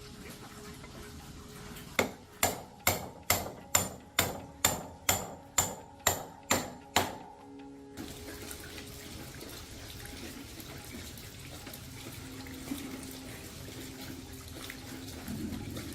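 A hammer striking metal about a dozen times at an even pace of roughly two blows a second. Just past halfway it gives way abruptly to a steady rushing noise.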